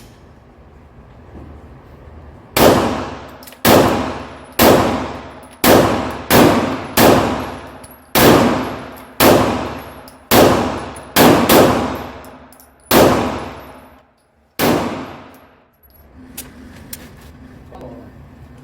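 9mm Glock 17 pistol fired about thirteen times at a steady pace of roughly one shot a second, each shot a sharp crack followed by a ringing tail that fades over most of a second.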